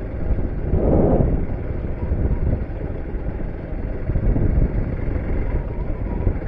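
Hero Xpulse 200 4V motorcycle on the move: a steady low rumble of wind buffeting the microphone, with the engine running underneath. A louder surge comes about a second in.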